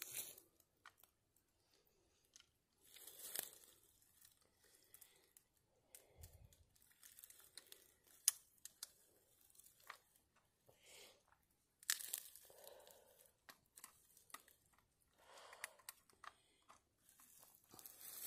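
Faint, intermittent rustling and crinkling with scattered sharp clicks, from hands handling a trail camera against a tree trunk in dry brush.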